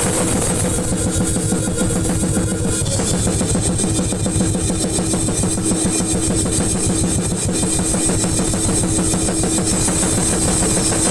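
Acoustic drum kit played in an extreme-metal style: a fast, unbroken stream of hits at a steady, loud level.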